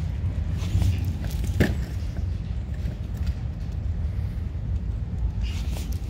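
Steady low rumble of outdoor background noise, with a few faint short ticks and taps over it.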